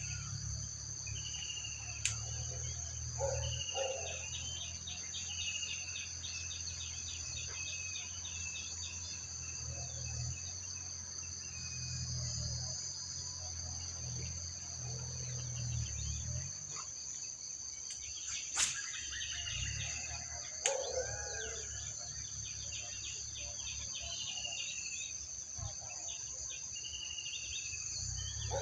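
Steady, high-pitched insect chorus of crickets or cicadas, with a bird giving short runs of falling chirps every few seconds. A few sharp clicks stand out, one about two seconds in and two more in the second half.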